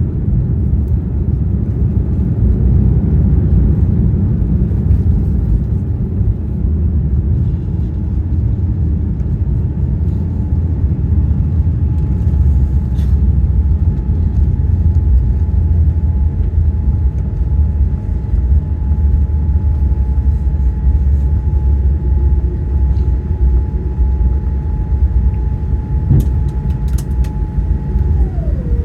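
Loud, steady low rumble inside the passenger cabin of a Boeing 787-9 Dreamliner, from its engines and airflow. A steady whine joins about ten seconds in and drops in pitch near the end.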